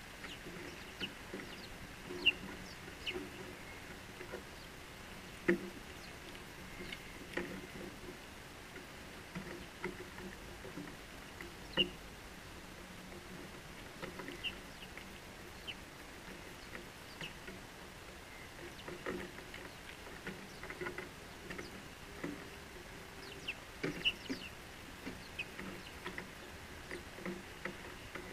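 House sparrows chirping in short, irregular notes, with scattered sharp ticks and taps close to the microphone.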